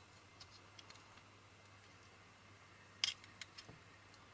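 Faint clicks and taps of a DVD recorder's front-panel display board being handled and turned over, with one sharper click about three seconds in and a couple of small ticks after it.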